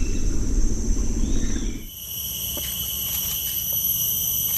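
A low rumbling noise for about the first two seconds, then an abrupt change to a steady, high-pitched chorus of insects trilling on several even tones.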